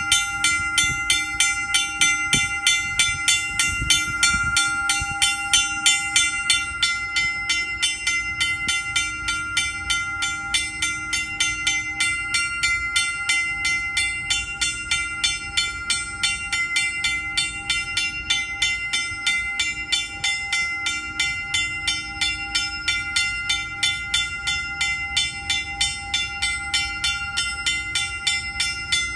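Lift-bridge warning bell ringing without pause, its clapper striking rapidly and evenly several times a second: the alarm that sounds while the gates are down and the span is open to river traffic.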